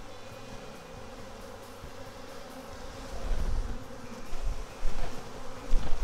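A great many honey bees buzzing in a steady drone, a colony stirred up after being shaken out of its hive boxes. Low bumps come in from about halfway in.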